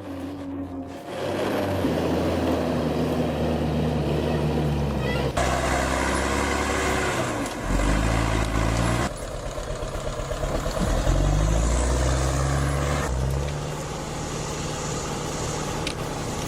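Heavy vehicle engines running under load, heard in several clips that cut from one to the next every few seconds.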